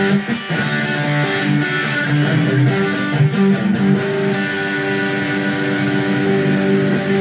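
Harley Benton Red Special-copy electric guitar played through an amplifier: a few picked notes and chords over the first four seconds, then a chord held and left ringing.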